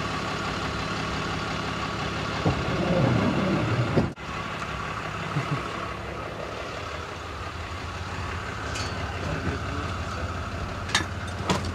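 A motor vehicle engine idling steadily, louder for a moment a few seconds in, with a few light clicks and knocks near the end.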